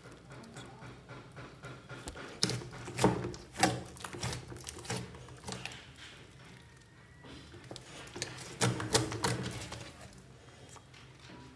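Slime being squished and stretched by hand, making irregular sticky clicks and pops that come in two busier spells, one a few seconds in and one near the end.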